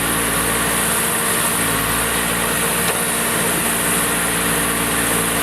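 Diesel engine of an earthmoving machine running steadily at a constant speed.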